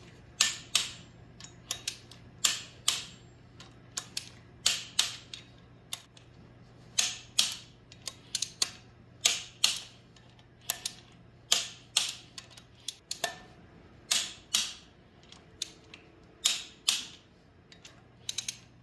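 A 3/8-inch-drive click-type torque wrench ratcheting and clicking as the flywheel bolts are pulled up to torque spec, 74 and then 85 ft-lb. The sharp clicks come in pairs and small clusters, one group every second or two.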